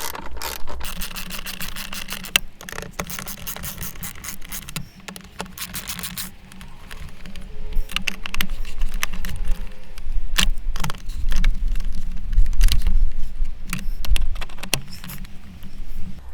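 Socket ratchet clicking as the 8 mm bolts of the air-filter box cover are run in and tightened, in quick runs of clicks with metal rattles and scrapes. Low bumps and rumble from handling come in the second half and are the loudest part.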